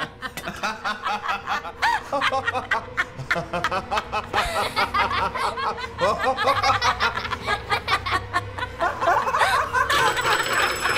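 A man and a woman laughing together. Near the end an old rotary telephone's bell starts to ring.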